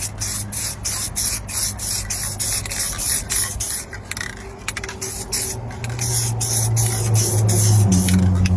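SEM aerosol spray dye being sprayed onto a repaired leather console lid in short, rapid bursts of hiss, about three or four a second. A steady low hum runs underneath and shifts up in pitch near the end.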